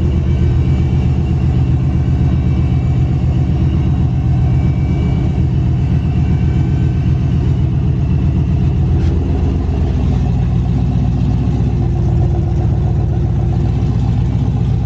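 Boosted GM full-size pickup's engine idling steadily, heard from underneath the truck close to the exhaust.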